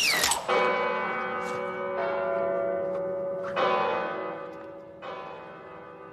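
Large clock-tower bell tolling: four strokes about a second and a half apart, each one ringing on and slowly dying away. A short falling whistle comes just before the first stroke.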